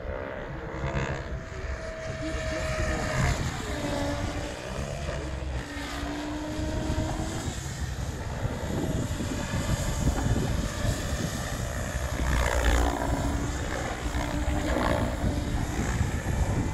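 Small radio-controlled helicopter flying, its rotor and motor whine rising and falling in pitch over a steady low rumble.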